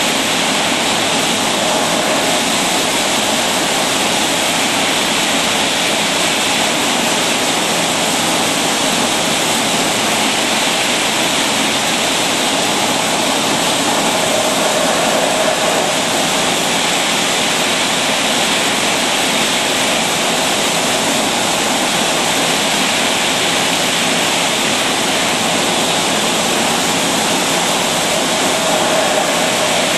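Automatic bottle filling and capping line running: a steady, loud hiss like rushing water or air, with no separate knocks or clinks standing out.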